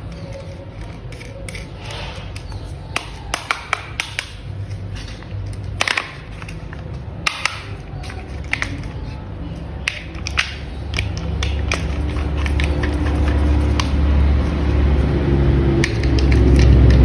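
Sharp plastic clicks and taps of toy vehicle parts being handled and snapped together, followed by a low rumble that grows louder over the last several seconds.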